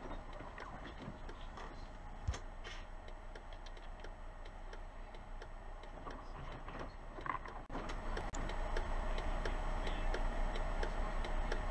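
Tour bus turn signal ticking steadily over the low hum of the bus's engine, heard inside the cab. About two-thirds of the way through there is a brief break, after which the sound is a little louder.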